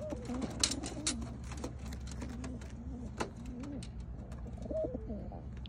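Homing pigeons crowded in aluminium transport crates, cooing over and over in low, rolling calls, with scattered sharp clicks and a steady low hum underneath.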